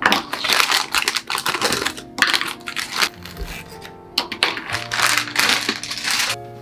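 Frozen green beans being handled and dropped into a plastic bowl: crackly rustling and clattering in three stretches, over background piano music.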